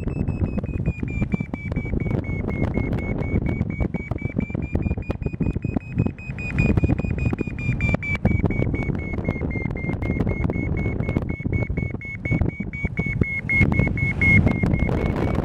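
Paragliding variometer sounding its climb tone, a high electronic beep that dips slightly in pitch and rises again a few times as the lift varies: the sign of climbing in a thermal. Wind rushes and buffets on the microphone underneath.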